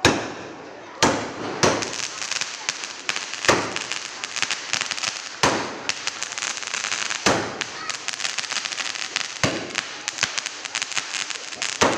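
Firecrackers going off: sharp bangs every second or two over dense, rapid crackling.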